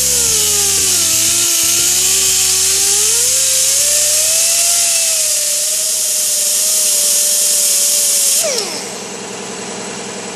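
90-degree die grinder with a sanding disc running against the end of a truck belt-tensioner pulley to smooth it, a loud hiss with a whine that dips as the disc is pressed on and then rises and holds. About eight seconds in, the grinder is let off and winds down with a falling whine.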